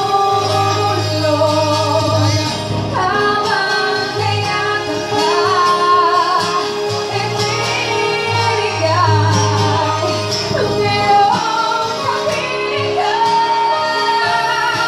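A woman singing a song live into a microphone, accompanied by keyboard and guitar, with several long held notes.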